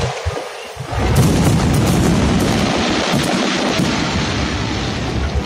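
Fireworks barrage: from about a second in, a dense, continuous run of overlapping booms and crackling bursts.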